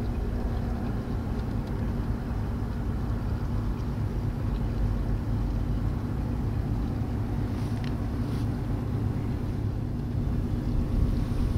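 Steady low drone of the ferry Barfleur's engines, an even hum with no change in pitch. A few faint clicks come about eight seconds in.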